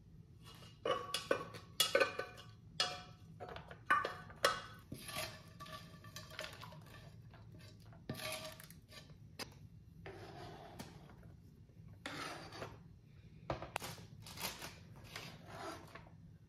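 Kitchen clatter: a spatula scraping and knocking against a frying pan as cooked chicken pieces are scraped into a plastic food container, with scattered clinks and taps at irregular intervals, the louder knocks in the first few seconds.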